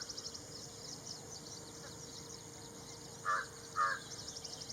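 Ashy Prinia calling: quick runs of high, thin notes, about a dozen or more a second, at the start and again near the end. The loudest sounds are two harsh, caw-like calls from another bird, half a second apart, about three seconds in.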